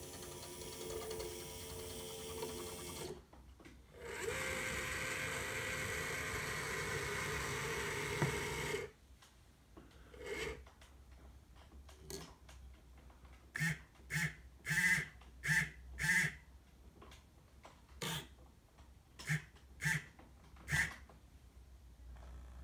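Heljan model container crane's motors working: a steady mechanical whirr as the gantry travels along its rails, in two runs with a short pause about three seconds in, then a string of short whirring bursts as the hoist is nudged to lower the spreader onto a container.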